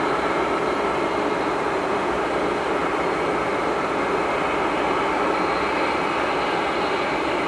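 Boeing 737-800's CFM56-7B turbofan engines running at taxi thrust: a steady jet rumble and hiss with a faint, even whine.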